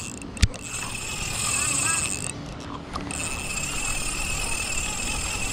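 Spinning reel being cranked, its gears whirring steadily as line is wound in, with a brief pause about two seconds in. A sharp click sounds about half a second in.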